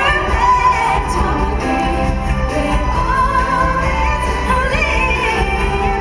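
Stage-show music with singing.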